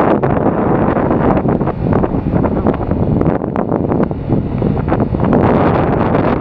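Wind buffeting the microphone of a motorcycle rider at road speed, coming in uneven gusts over the motorcycle engine running underneath.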